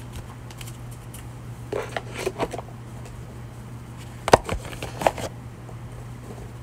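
Tarot cards being handled and shuffled on a table: a cluster of quick rustles and clicks, then a sharp tap and a second, softer one, over a steady low hum.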